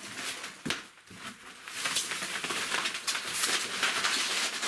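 Rustling and crinkling of foam sheets and plastic wrapping being pulled out of a cardboard box, with a sharp click about two-thirds of a second in.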